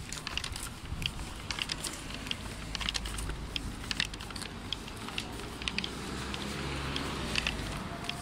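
Footsteps on a paved sidewalk, heard as irregular light clicks and crackles, over a low steady rumble that grows a little louder for a few seconds near the end.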